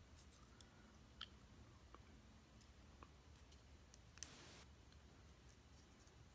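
Near silence broken by a few faint, scattered clicks of steel tweezers handling small lock pins and springs. The loudest click comes about four seconds in.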